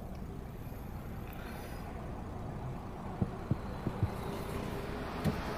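Steady low rumble of a car heard from inside its cabin, with a few soft, short low thumps in the second half.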